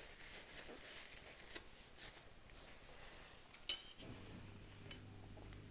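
Faint rustle and small ticks of a paper towel being rubbed over a plastic spoon, with one sharp click a little before four seconds in. About four seconds in, a low steady hum starts and keeps going.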